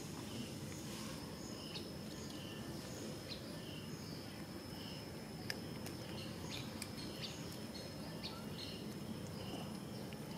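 Outdoor ambience: a steady low background noise with a repeated short high chirp, about one and a half a second, over a faint steady high-pitched drone. A few light ticks, the sharpest about halfway.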